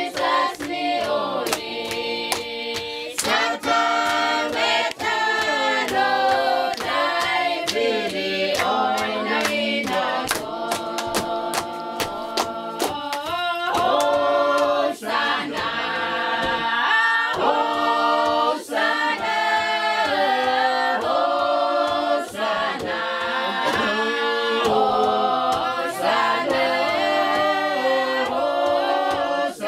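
A group of women's and children's voices singing together as a choir, unaccompanied, the song going on without a break.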